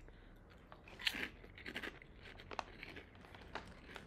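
Oishi spicy prawn crackers being bitten and chewed: a handful of separate dry crunches, the strongest about a second in.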